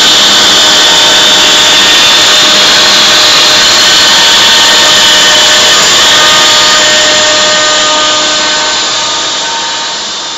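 CNC router spindle running with its bit routing plywood: a loud, steady, high whine over dense cutting noise. The sound fades out over the last few seconds while its pitch holds.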